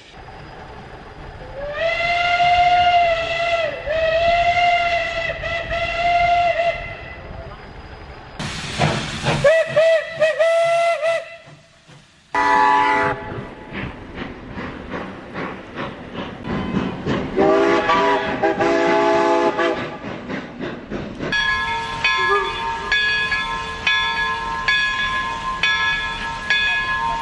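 A run of steam locomotive whistles from separate recordings: first a long single-note blast that dips in pitch a few times, then a short blast with a hiss of steam. A multi-note chime whistle follows over irregular exhaust beats, and a steady many-note whistle sounds near the end.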